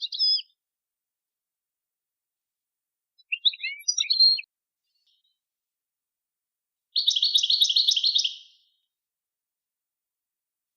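Songbird song from a tutor tape of the 'Widania' song style, used to teach birds. It comes in three short phrases with silent gaps: a brief twittering phrase at the start, a longer run of quick varied notes about three and a half to four and a half seconds in, and a fast, even trill from about seven to eight and a half seconds.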